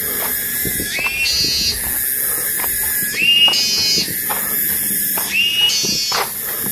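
Forest wildlife chorus, most likely insects: a high hissing drone that swells and fades in roughly one-second pulses, with a call that climbs in pitch in steps and then breaks into a higher buzz, repeating about every two seconds.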